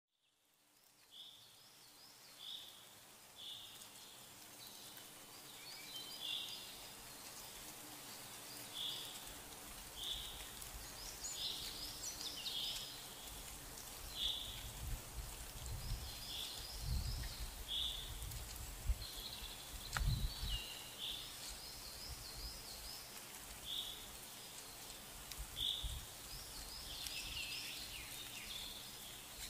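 A bird repeating a short, high call about once a second, with other chirps and trills mixed in, over an intermittent low rumble.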